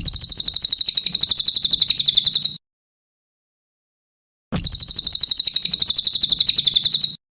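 Cililin bird song: a rapid, high, buzzy trill of about a dozen notes a second, lasting about two and a half seconds. The same phrase is repeated after a pause of about two seconds.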